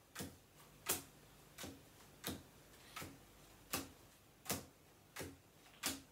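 Playing cards dealt one at a time onto a tabletop, each landing with a sharp slap, nine in a steady rhythm about one every 0.7 seconds.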